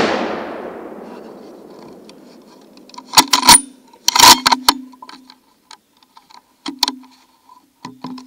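The echo of a gunshot rolls away through the woods over the first couple of seconds. Then come clusters of sharp metallic clacks and clinks with a short ring as the gun is moved, mostly about three to five seconds in, with a few more near seven and eight seconds.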